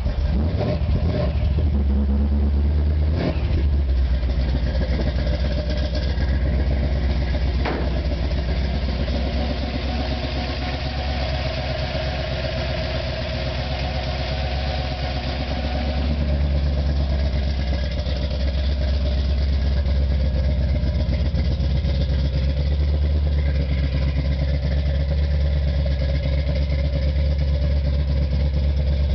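Small-block Ford V8 with tube headers in a 1955 Ford pickup, idling steadily. Two short knocks come in the first eight seconds.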